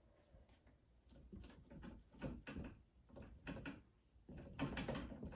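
Palette knife spreading and scraping thick acrylic texture paste across a stretched canvas: a run of irregular soft scrapes and smears, louder near the end.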